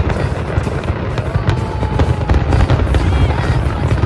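Aerial fireworks shells bursting and crackling in quick succession, a dense run of booms and sharp cracks, with music playing over them.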